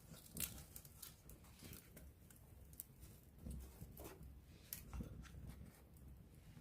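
Wood campfire crackling softly, with scattered sharp pops over a low rumble of the flames; the loudest pops come about half a second in and again near five seconds.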